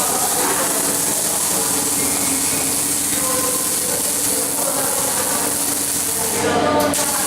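Welding arc sizzling with a steady, loud crackling hiss, breaking off briefly near the end.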